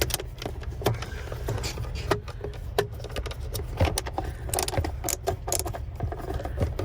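Scattered clicks, taps and rattles of hands working loose plastic steering-column trim and its screws, over a steady low rumble.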